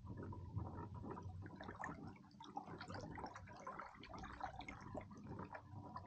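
Faint, irregular patter of many small splashes on the water surface: a bust-up, predatory fish chasing baitfish at the surface.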